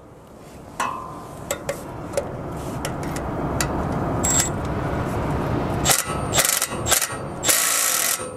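Cordless ratchet undoing 13 mm bolts on a trailer axle's brake camshaft bracket, with sharp clicks of the socket and tool on the bolts, then one short run of the ratchet near the end.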